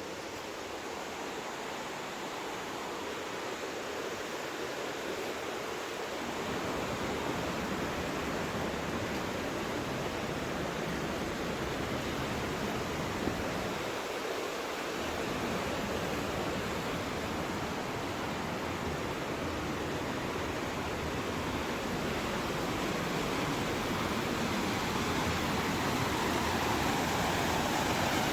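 Steady rush of flowing mountain water, growing slowly louder, with a low rumble underneath that drops away for the first few seconds and again briefly about halfway through.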